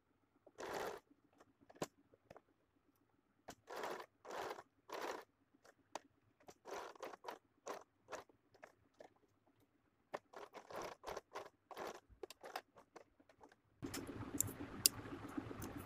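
Domestic electric sewing machine stitching fabric in short spurts: about a dozen brief scratchy bursts with pauses between them. A steady low hum starts near the end.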